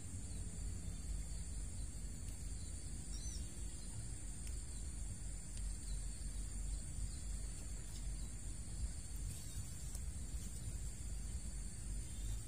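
Steady high-pitched chorus of insects, several even tones held together without a break, over a low steady rumble.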